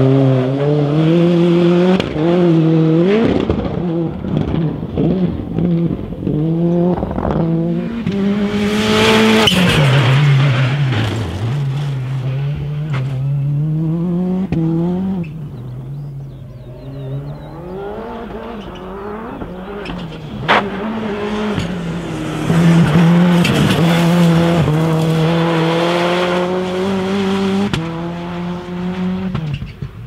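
600 hp turbocharged rallycross cars driven hard: the engine note climbs through the gears with quick upshifts, drops off when lifting and picks up again, over and over. A burst of tyre noise about nine seconds in and a single sharp crack about twenty seconds in.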